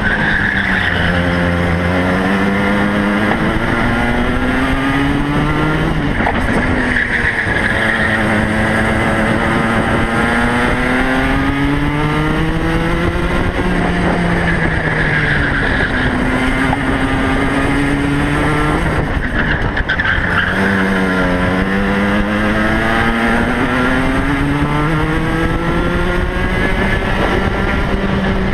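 Racing kart's two-stroke engine heard from on board at full race pace, its revs climbing along each straight and dropping away into each corner, over and over.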